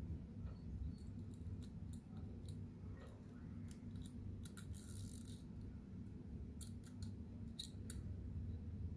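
Faint scattered clicks of a thin steel pin being worked into a small black plastic part of a CO2 BB pistol's mechanism, with a brief scraping sound about halfway through.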